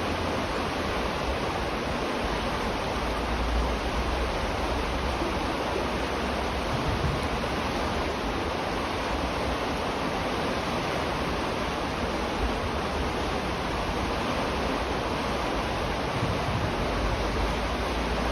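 River water rushing steadily under a bridge, an even continuous noise, with a few brief low rumbles.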